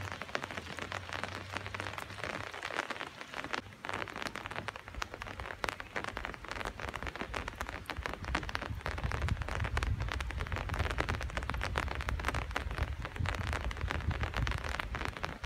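Rain pattering close to the microphone: a dense, steady crackle of drops. A low rumble joins it about halfway through.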